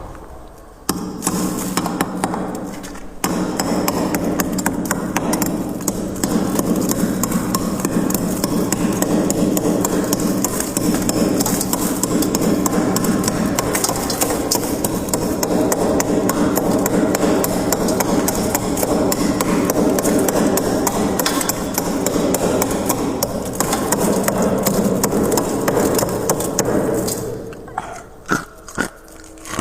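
Frost being scraped from a freezer's walls: a dense, continuous scratching rasp that stops a few seconds before the end, followed by a few separate clicks.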